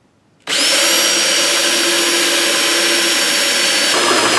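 Cordless drill starting about half a second in and running steadily with a high whine, a half-inch bit cutting a hole through the sheet-metal ballast compartment cover of a fluorescent troffer.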